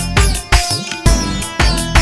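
Instrumental break in a Punjabi pop song: a steady drum beat, about two strokes a second, under sustained chords, with no singing.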